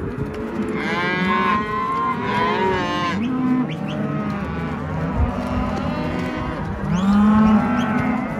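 A herd of cattle mooing and bawling, many calls overlapping, with the loudest bellows about a second in and again near the end.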